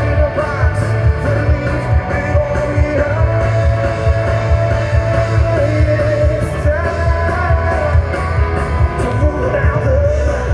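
Live rock band playing loud through a PA, heard from the crowd: singing over electric guitars, bass guitar and drums with a heavy, steady low beat.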